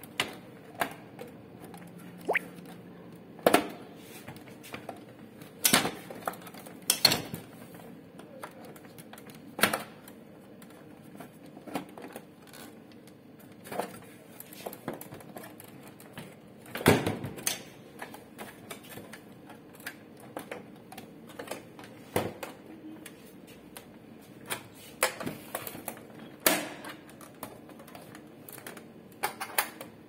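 Scattered clicks and knocks of the plastic casing and parts of an HP LaserJet P1005 laser printer being pried at and handled during disassembly, the loudest knock a little past halfway.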